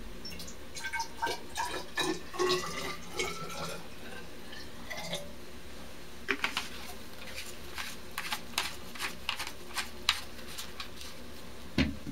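Hydrogen peroxide poured from a bottle into a graduated cylinder, a gurgling trickle whose pitch rises as the cylinder fills. Then scattered drips and small clicks, and a dull knock near the end.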